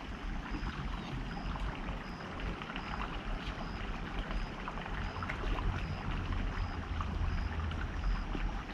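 River water rushing over rocks, a steady splashing rush with a deep low rumble and small scattered splashes. A faint, high, short chirp repeats about every two-thirds of a second.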